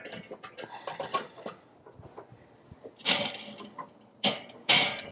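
Knocks and clattering as wood chunks are put onto the charcoal in a kettle grill, with a few louder scraping, rustling noises about three seconds in and near the end.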